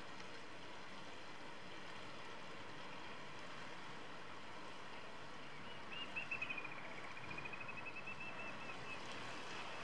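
Steady wash of water along a rocky shoreline. About six seconds in comes a fast, even trill of high bird peeps, lasting about three seconds, that dips slightly in pitch and then holds level.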